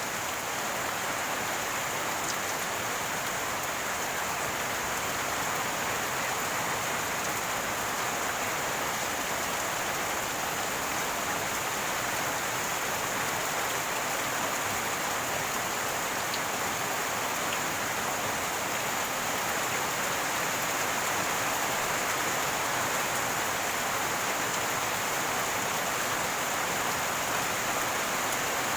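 Steady gurgling rush of running rainwater, even in level with no breaks or distinct events.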